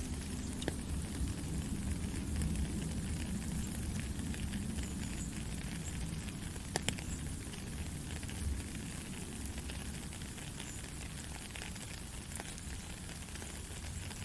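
Steady heavy rain: a dense, even hiss with scattered sharp drip clicks, one louder click about seven seconds in, over a low rumble underneath.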